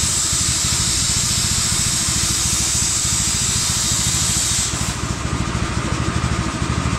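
VEVOR plasma cutter cutting thin steel: a strong, steady hiss of the air-plasma jet that cuts off suddenly about two-thirds of the way in. A low, rhythmic engine-like sound continues underneath.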